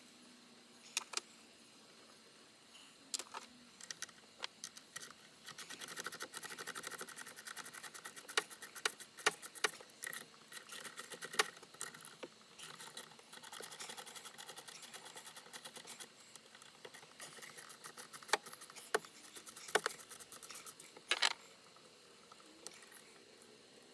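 Hand ratchet clicking in quick runs while loosening carburetor mounting nuts, with sharp metallic clinks and clanks of tools on metal in between. One run comes about six seconds in, another near the three-quarter mark, and a single loud clank follows near the end.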